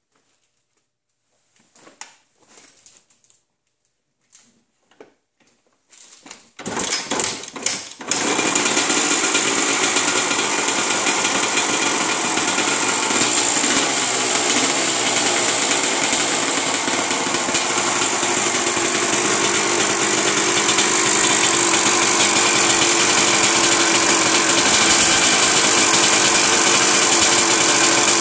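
2001 Kawasaki KX250 two-stroke single-cylinder engine cold-starting: after a few seconds of faint clicks it fires in ragged bursts about six to seven seconds in, then runs steadily at a loud idle.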